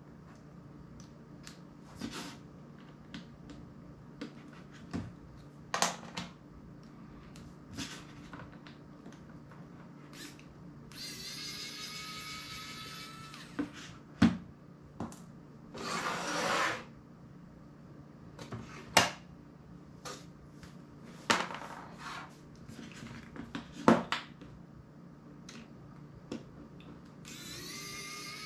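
Small electric precision screwdriver motor whirring in two spells of a couple of seconds each, a steady whine rising slightly in pitch, between light clicks and taps of small screws and tools on the table. A short rushing noise lasting about a second comes midway.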